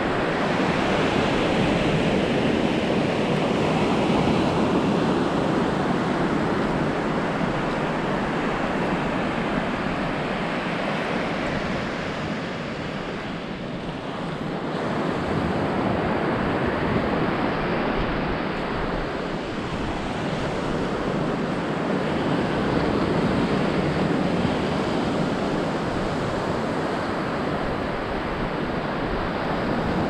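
Ocean surf breaking and washing up a sandy beach: a steady rushing noise that slowly swells and eases, with wind buffeting the microphone.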